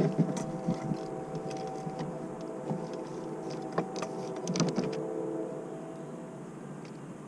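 A steady motor hum from the small boat, with sharp clicks and knocks from fishing tackle being handled, the loudest right at the start and again about four and a half seconds in.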